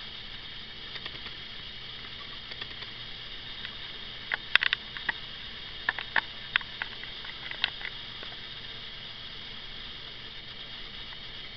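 Steady hiss with a scattered run of small, sharp clicks and taps between about four and eight seconds in.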